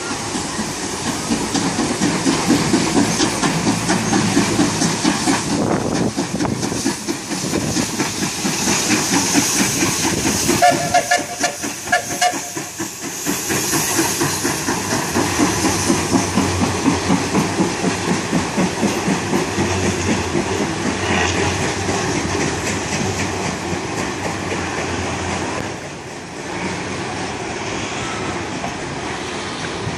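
Steam locomotive passing close by, chuffing in a quick rhythm over hissing steam, with a short whistle blast about eleven seconds in. Its passenger carriages then roll past, wheels clicking over the rail joints.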